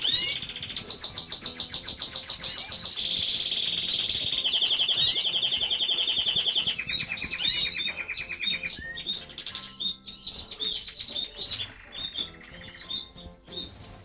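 Canary singing a long song of rapid trills, each held for a second or two and stepping lower in pitch, followed by shorter chirps and calls from other birds in the flight for the last few seconds.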